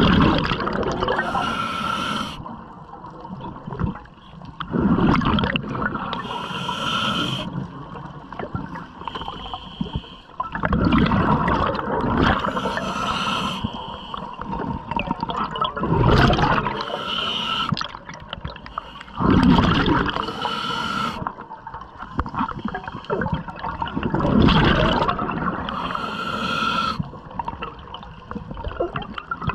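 Scuba diver breathing through a regulator underwater, in a steady cycle about every five seconds: a hissing inhale through the regulator, then a loud burst of bubbling as the exhaled air leaves the exhaust. About six breaths.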